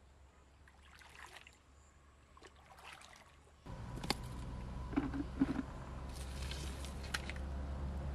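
Faint water sloshing and dripping as a hand net is swept through shallow stream water, in a couple of short splashes. About halfway through the sound changes abruptly to a steady low hum with a few scattered clicks and taps.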